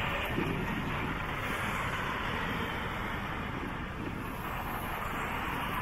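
Steady road traffic noise from cars and trucks running along a city street.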